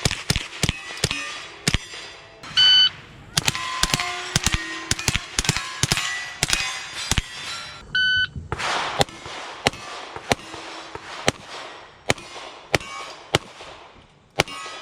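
Rapid .22 rimfire gunshots fired in quick strings, some hits followed by the ring of steel plates. A shot timer beeps twice, about five seconds apart, each beep starting a new flurry of shots.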